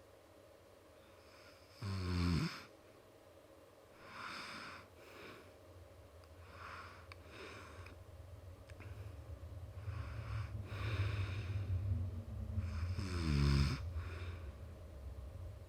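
A man snoring: a loud, pitched snore about two seconds in and another about thirteen seconds in, with softer breaths between them and a low rumble building in the last few seconds before the second snore.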